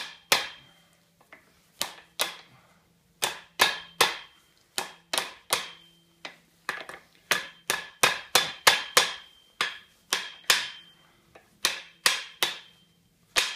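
Hammer blows on metal, about two dozen hard strikes in irregular runs, some with a short metallic ring, driving a tight-fitting part onto a John Deere B tractor fan shaft.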